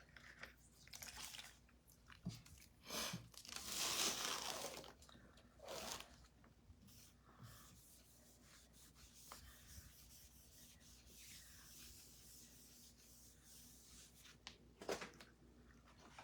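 Faint, intermittent rubbing and scraping of hand work on a craft surface, in a few short bouts, the longest about four seconds in.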